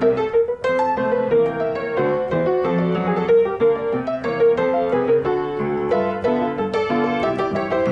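Background piano music: a light tune of quick, short notes over a repeated middle note.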